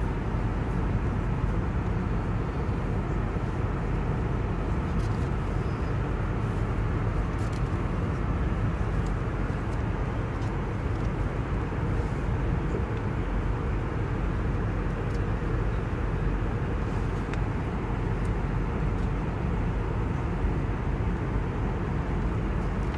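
Steady roar of jet airliner cabin noise in flight, engines and airflow heard from inside the Airbus cabin, unchanging throughout, with a few faint ticks.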